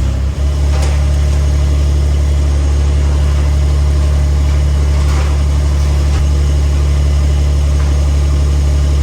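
An engine running steadily with a strong, even low hum.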